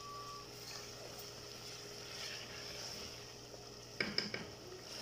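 Mutton and spices frying in a steel pot, a faint steady sizzle as the masala is fried down. About four seconds in, a stirring spoon scrapes and knocks against the pot a few times.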